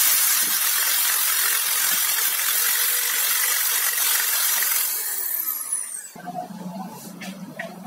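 Electric drill fitted with an abrasive disc grinding rust off a steel knife blade, a loud even hiss over the motor's whine. About five seconds in it comes off the metal and spins down with a falling whine, leaving a faint low hum and a few light clicks.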